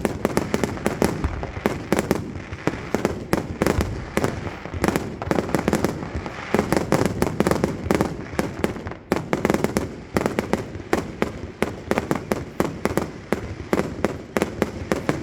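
Fireworks display going off in quick succession: sharp bangs and crackling, several a second without letup, over a continuous low rumble.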